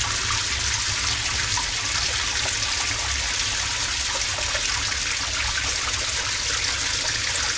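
Water pouring steadily into the bottom chamber of a homemade polypropylene sieve filter as it fills up toward the float valve, a continuous splashing trickle with a steady low rumble underneath.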